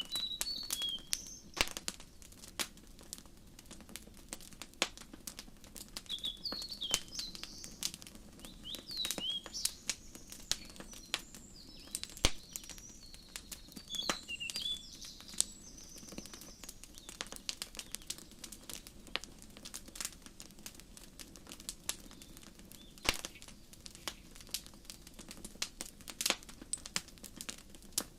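Wood fire crackling with irregular sharp pops, some loud. Birds chirp in short, high calls through roughly the first half and then mostly fall away.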